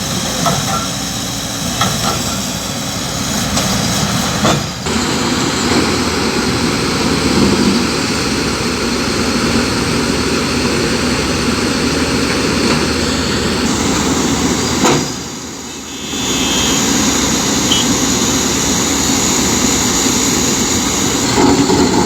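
Excavator diesel engines running steadily under load. The sound breaks off briefly twice, about five seconds in and again past the middle.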